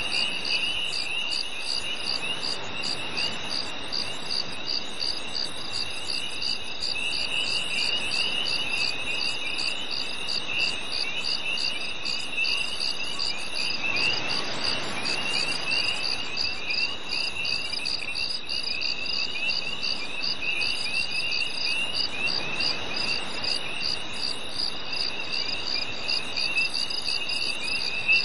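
Night insects chirping together, crickets among them. One high chirp pulses evenly about twice a second over a steady high drone, with uneven trills a little lower. A faint rushing sound swells up twice.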